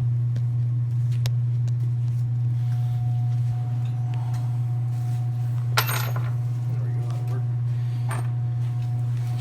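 A few sharp metallic clicks and clinks of small hardware being handled, the strongest about six seconds in, over a steady low hum.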